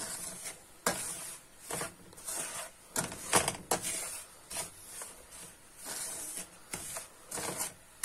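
Wooden spoon stirring and scraping semolina as it roasts brown in a non-stick frying pan for semolina halva, an irregular run of short scraping strokes, about one or two a second.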